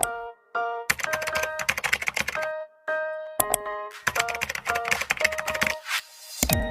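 A string of short video-editing sound effects: bright chime-like notes, two bursts of rapid clicking with tones under them, and a short rising whoosh near the end.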